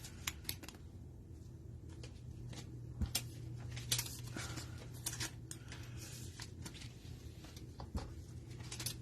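Trading cards and their packaging being handled: light clicks, slides and rustles, with a few sharper clicks about three, four and eight seconds in, over a steady low hum.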